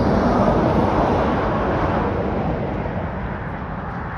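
Highway traffic going past: a rush of tyre and wind noise that peaks about a second in and then fades.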